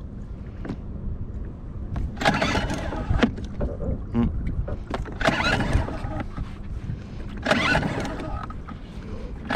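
Small Suzuki outboard being pull-started by its recoil starter cord three times, a couple of seconds apart; the engine turns over with each pull but does not catch.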